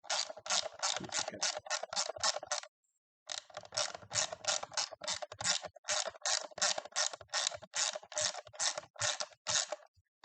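Ratcheting driver clicking in quick, even strokes, about five clicks a second, as it works a Torx screw on the battery case. It runs in two stretches with a short pause after about two and a half seconds.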